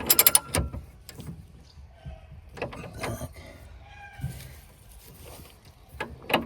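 Ratchet wrench clicking in a quick run of strokes at the start as nuts on the stabilizer bushing bracket are tightened, then a few separate metallic clicks and knocks from the tools.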